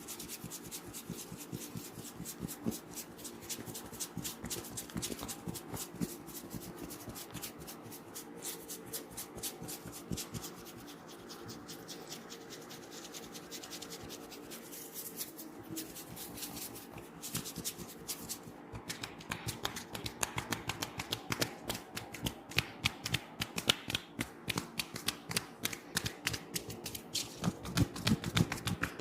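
Hands rubbing and working through the hair and scalp in a head massage: a fast, dense crackle of small clicks that turns louder and sharper about two-thirds of the way through.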